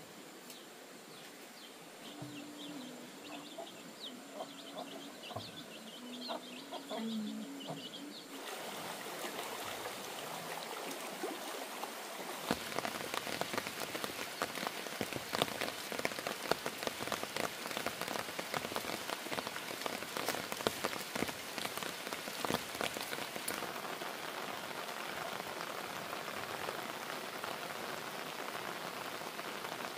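Rain falling steadily. It comes in about eight seconds in and grows heavier a few seconds later, with many individual drops striking close by. Before it there is a quieter stretch with a few faint low calls.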